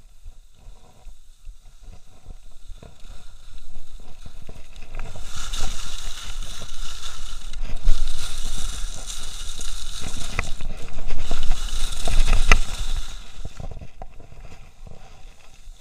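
Skis hissing and scraping over groomed snow through fast turns, mixed with wind rushing over the microphone. It swells as speed builds, is loudest in the middle with a few short clicks, and eases off near the end.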